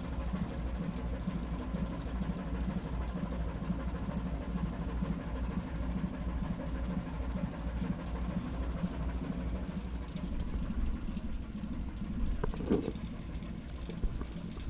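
A ship's engine running steadily, a low, evenly pulsing hum. A brief clatter about twelve seconds in.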